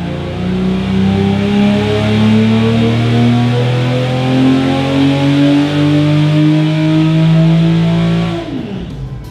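Custom V12 LS engine, a 750-horsepower twelve-cylinder built from LS parts, on the dyno in a full-throttle pull. Its revs climb steadily under load for about eight seconds, then drop sharply as it comes off the throttle near the end.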